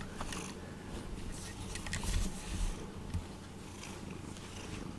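A domestic cat purring right at the microphone: a low, steady rumble, with a few faint clicks around two seconds in.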